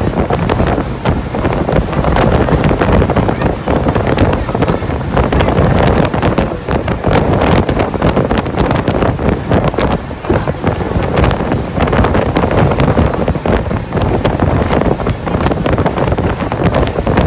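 Wind buffeting the microphone on a small motorboat under way, over the steady noise of the boat's engine and the water rushing past the hull.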